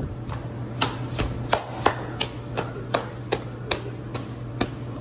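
Pizza dough being slap-stretched, smacked from hand to hand: an even run of sharp smacks, two or three a second, over a steady low hum.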